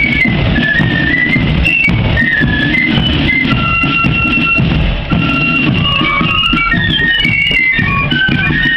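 Marching flute band playing a tune on flutes, the melody stepping between high held notes, with drums beating underneath.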